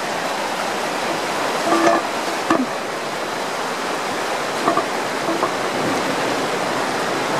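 Storm water rushing and churning as it wells up out of a backed-up storm drain into a flooded yard: a steady, even rush.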